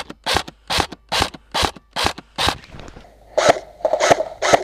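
Regular scraping and rustling, about two strokes a second, from an airsoft player moving over muddy ground with his kit. The strokes turn rougher and closer together near the end.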